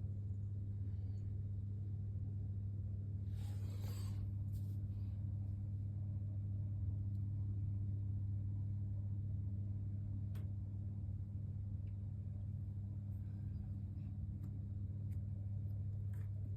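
A steady low mechanical hum, with a short rustle about three and a half seconds in and a few faint clicks.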